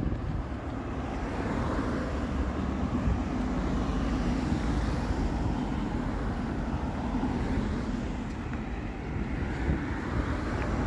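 Street traffic noise, with a motor vehicle's engine passing close, swelling about two seconds in and easing off near the end.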